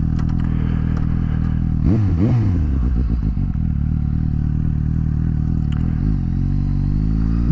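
Suzuki GSX-S750's inline-four engine running under way. The revs drop and rise quickly about two seconds in, hold steady, then climb near the end.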